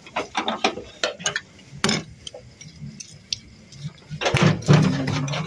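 Chopsticks tapping and clinking against a small ceramic dipping bowl and china plates: scattered light clicks, busier near the end.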